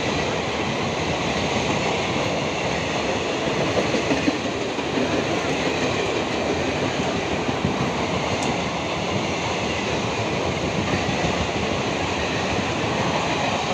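Indian Railways express passenger train's coaches passing close by at speed through a station without stopping: a steady noise of wheels running on the rails.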